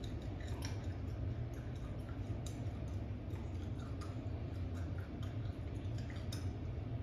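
A mouthful of lime peel being chewed: irregular short, wet crunches and clicks over a steady low hum.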